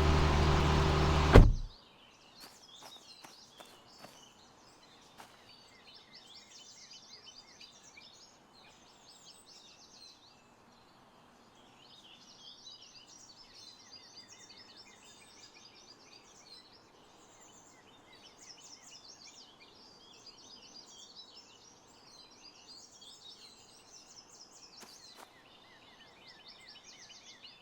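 An engine runs steadily for about the first second and a half, then cuts off abruptly with a thunk. After that, small birds chirp and twitter faintly and continuously, with a few light clicks soon after the engine stops.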